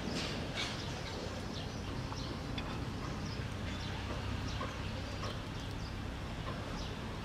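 Scattered short bird chirps over a steady low background rumble, with the soft mouth sounds of a long-tailed macaque biting and chewing a ripe mango.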